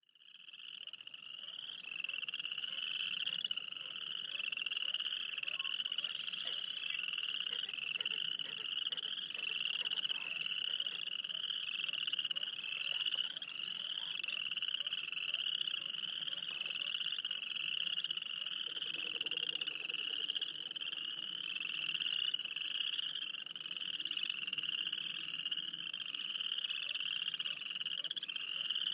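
A chorus of many frogs calling together: overlapping short, high, rising trills repeating about once a second. The chorus fades in over the first two seconds.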